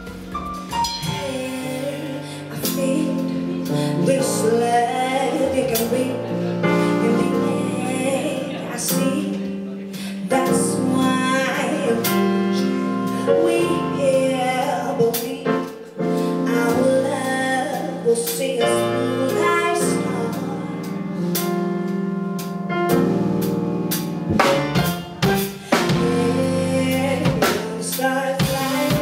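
A woman singing soul, backed by a band on drum kit and electric keyboard.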